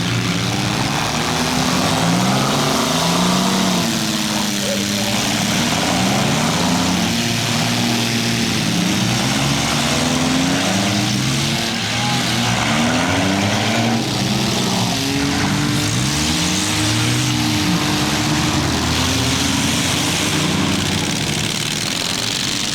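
Several small-car engines revving and easing off at once in a demolition derby heat, their pitches rising and falling over one another without a break.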